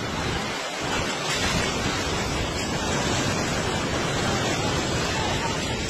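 Muddy floodwater rushing fast over the ground in a steady, unbroken rush.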